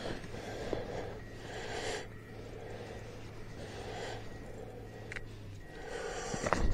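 A person breathing hard in steady, quick breaths while fighting a hooked fish, with a couple of sharp clicks near the end.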